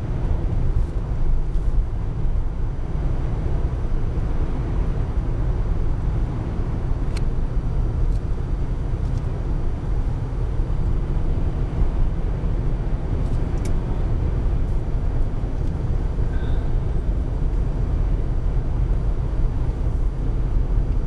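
Steady road noise inside a moving car at highway speed: an even low rumble of tyres, engine and wind.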